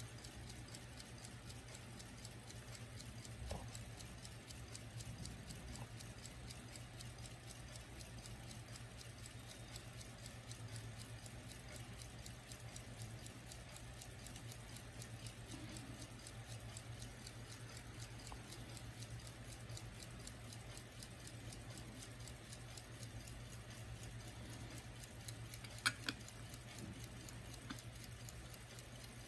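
Westclox Scotty pin-pallet pocket watch ticking, a fast, even run of faint ticks over a steady low hum. A sharp click sounds a few seconds before the end as the watch is handled.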